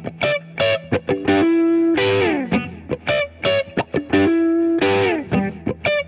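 Outro music: a guitar with effects plays a short plucked riff that repeats about every three seconds, with notes sliding down in pitch.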